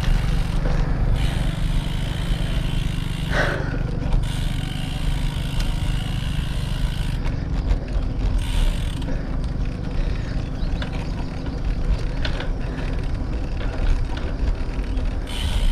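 Wind rumbling over a handlebar-mounted camera's microphone as a road bicycle rides along at speed, steady and fluctuating.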